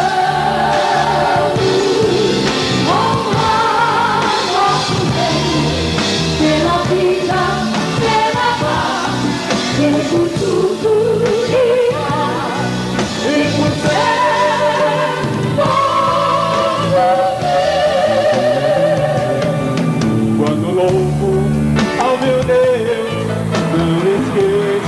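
Live Christian praise song played by a band, with sustained sung melody lines held with vibrato over the accompaniment.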